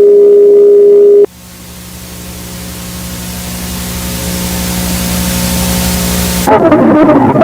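A loud, steady electronic beep tone that cuts off about a second in, followed by static hiss over a low hum that swells steadily louder. Near the end it switches abruptly to a loud, rough, fluttering sound.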